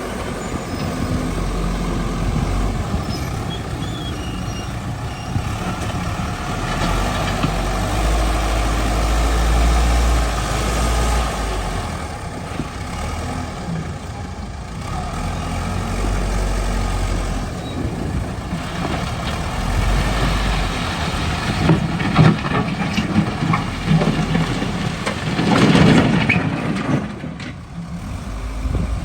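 A backhoe's diesel engine running and working, its low rumble rising and falling. Knocks and scrapes come in the second half, with a loud surge near the end.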